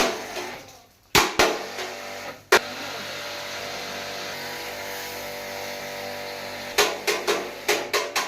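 Hammer strikes on metal parts during a tractor hydraulic valve repair: a few single ringing blows, then a quick run of blows, about three or four a second, near the end, over a steady hum.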